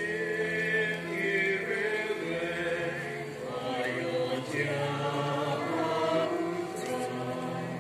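Several voices singing a slow hymn together, with long held notes.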